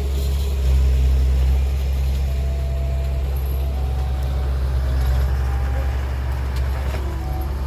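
Heavy diesel engine of a dump truck or bulldozer running steadily, a deep rumble.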